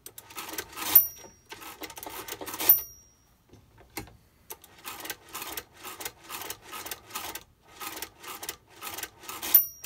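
A 1959 Nisa Model K1 hand-cranked mechanical calculator being cranked turn after turn, its gearwork rattling about three times a second. Its underflow bell rings three times, about a second in, near three seconds and near the end; each ring is the sign that the subtraction has passed zero and one positive crank is needed. A single click about four seconds in is the carriage being shifted over.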